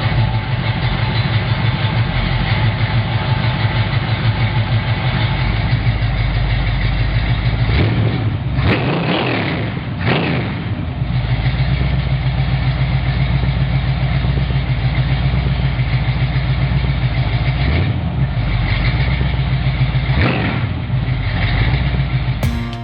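1968 Pontiac Tempest's engine running steadily with a low, pulsing rumble. Its pitch rises and falls briefly a couple of times about eight to ten seconds in and once more about twenty seconds in.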